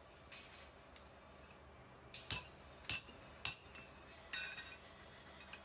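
Steel tubes clinking against each other and against metal as they are handled and laid on a pile: a series of sharp separate metallic clinks, the three loudest coming a little over half a second apart in the middle.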